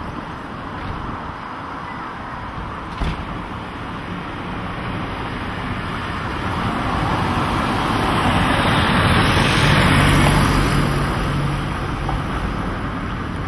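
Street traffic noise, with a motor vehicle passing close by: the sound swells, carrying a low engine hum at its loudest about ten seconds in, then fades. A single short click about three seconds in.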